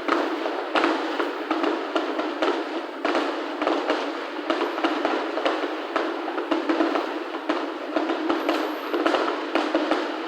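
Fireworks finale barrage: a dense, continuous run of bursts and crackling with many sharp bangs close together.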